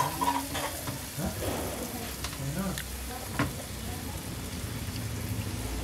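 Meat sizzling steadily on a round grill pan over a portable gas stove, with a few sharp clicks of utensils on the pan.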